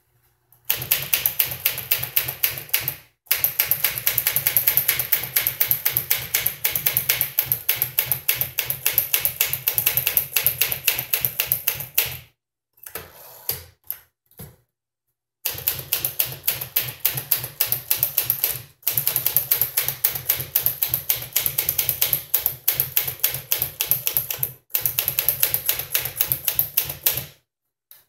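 1957 Smith Corona Silent Super manual typewriter being typed on in fast, steady runs of key clacks. About halfway through the typing stops for a couple of seconds, with a few quieter mechanical clicks, then picks up again at the same pace.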